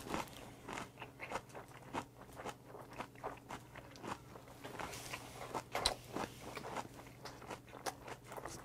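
Chewing a mouthful of oyster bossam wrap (salted napa cabbage leaf with raw oysters, boiled pork, chili, garlic and kimchi filling), with irregular crunches of the cabbage.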